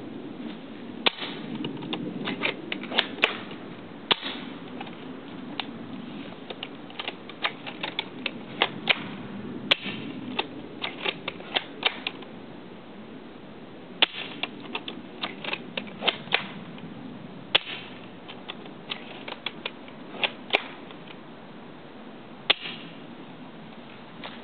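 Airsoft L96 bolt-action sniper rifle being fired repeatedly, a sharp snap every few seconds with smaller clicks of the bolt being pulled back and pushed forward between shots.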